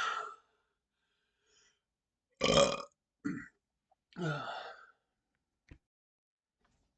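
A man's burps after chugging orange Fanta, the gas coming up a little at a time as four separate short burps rather than one big one. The loudest comes about two and a half seconds in, and the last, about four seconds in, drops in pitch.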